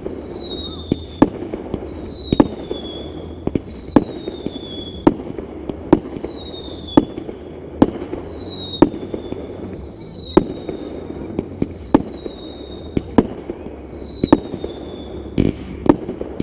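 Fireworks show: a steady series of loud bangs, about one a second, each followed by a high whistle that falls in pitch.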